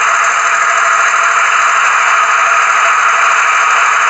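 Sound decoder of a Trix H0-scale DB V90 (class 290) diesel locomotive model playing a steady diesel engine running sound through the model's small speaker. The sound is thin, with almost no bass.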